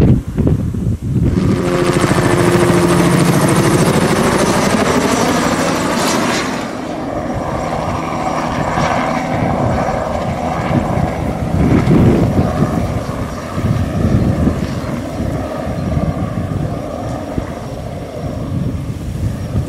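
Bell 206B-3 JetRanger III crop-spraying helicopter flying a low pass: turbine whine and rotor blade chop, with the pitch falling as it goes by over the first few seconds. After that the rotor chop goes on, lower and pulsing, as it flies on.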